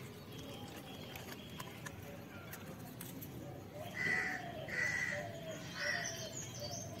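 A crow cawing three times, about a second apart, starting about four seconds in.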